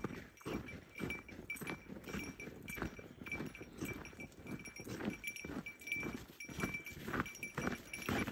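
Footsteps crunching on a packed-snow trail, about two steps a second, with a faint high ringing note that comes and goes alongside them.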